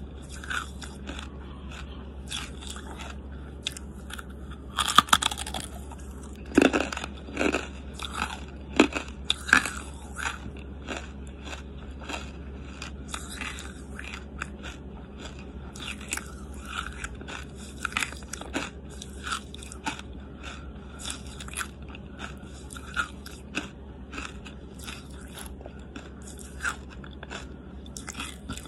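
Close-miked chewing of charcoal: a run of sharp crunches and wet clicks from the mouth, loudest in a cluster of hard crunches about five to ten seconds in.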